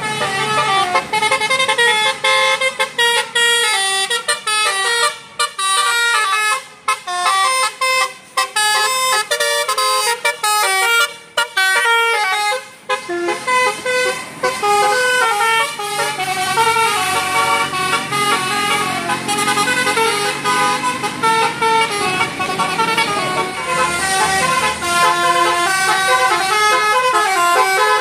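Bus telolet horn (Basuri melody horn) playing a tune of stepped pitched notes: a quick run of short, choppy notes in the first half, then longer held notes.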